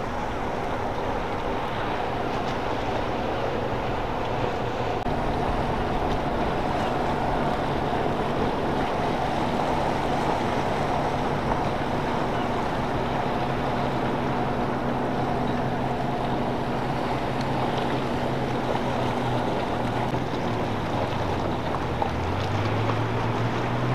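Outboard motor of a rigid inflatable boat running at speed, a steady engine drone whose note rises near the end, over a constant rush of wind and water.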